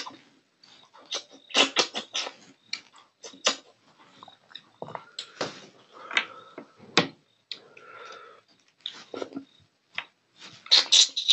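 Close-miked mouth sounds of a man eating fish with his hands: wet smacking, sucking and chewing in quick, irregular clicks, with the loudest clusters about a second and a half in, about seven seconds in, and near the end.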